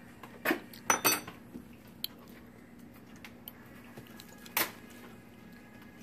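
Wooden spoon knocking and scraping against a plastic mixing bowl while batter is stirred: a few sharp clacks around a second in, and another past the middle.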